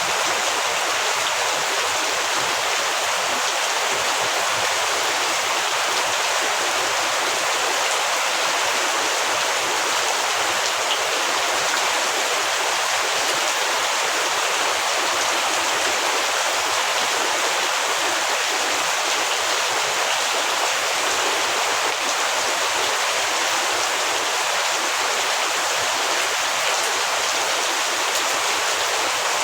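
Heavy rain falling steadily: a dense, even hiss that holds at the same level throughout.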